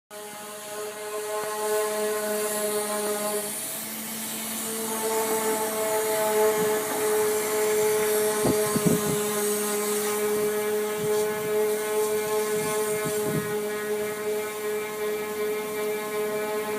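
A hose giving off a steady, pitched humming drone with several overtones. The tone breaks briefly and comes back slightly higher about four seconds in, and a few short scrapes come through around the middle.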